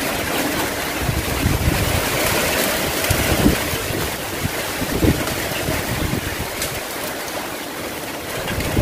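Typhoon-force wind and heavy rain: a steady rushing roar, with gusts buffeting the microphone in low rumbles.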